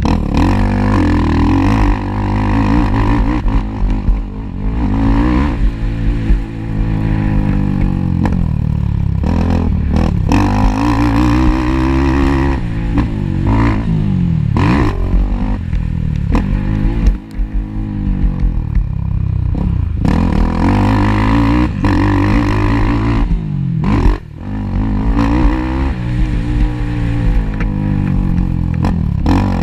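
Racing ATV (quad) engine revving hard, its pitch climbing and dropping again and again as it accelerates and backs off, with a couple of brief drops in level along the way.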